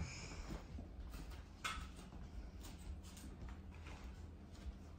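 Quiet room with a steady low hum and a few faint soft taps.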